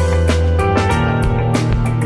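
Music: guitar notes over a steady drum beat.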